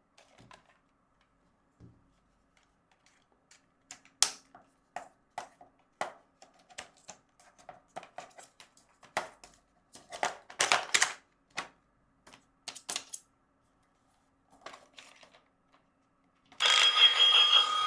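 Plastic toy parts and packaging being handled: irregular clicks, taps and light rustling. Near the end, a battery toy's electronic music starts up, much louder.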